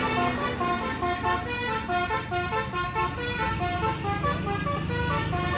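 Tour bus's basuri "telolet" musical air horn playing a quick tune of short notes that hop in pitch. A bus engine runs low underneath, growing stronger in the second half.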